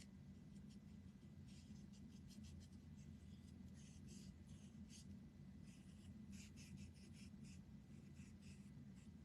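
Faint, irregular scratchy strokes of brown paint being applied along the cut edges of a wooden craft piece, over a low steady hum.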